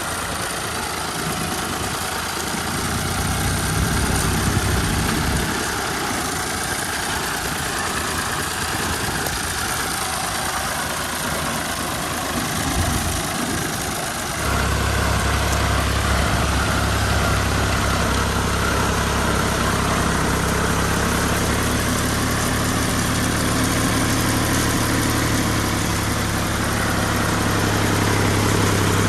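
An old Fiat 480 tractor's diesel engine running steadily, as it does when driving a wheat thresher. About halfway through the sound changes suddenly to a louder, deeper and steadier engine drone.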